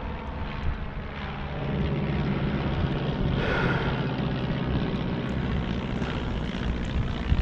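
A flight of propeller planes droning overhead: a steady, low engine drone that grows louder about one and a half seconds in and holds.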